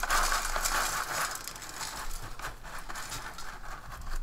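Rustling of a ration pouch with many small, dry clicks and crackles as shoestring potato sticks are handled on a plate.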